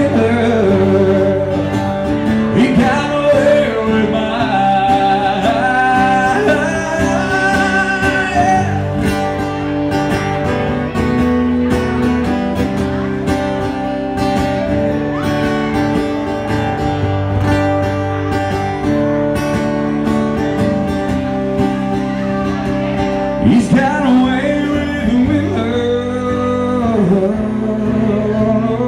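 Live country song from a band, a male singer with acoustic guitar over the band. The singing drops out for an instrumental stretch in the middle and comes back near the end.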